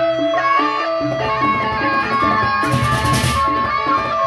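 Sasak gamelan ensemble playing baleganjur: ringing gongs and a steady run of repeated metal notes over drum strokes, with a burst of clashing hand cymbals about three seconds in.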